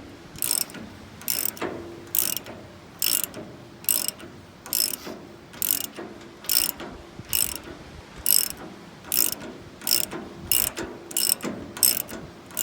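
RIVET-EZE rivet tool being cranked to push a rivet out of a sickle knife section, giving sharp, evenly spaced clicks a little more than once a second.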